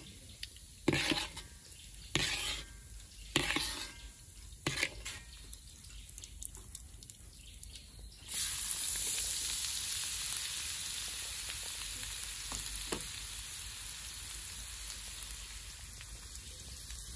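Cooking oil in a pan: a few sharp clatters of a utensil against the pan, then about eight seconds in a loud sizzle starts suddenly as food goes into the hot oil. The sizzle carries on, slowly easing.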